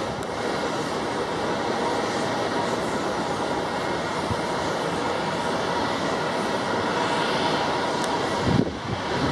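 Boeing 777 twin jet engines running at taxi power, a steady rush of noise with a faint steady whine. A brief low thump comes near the end.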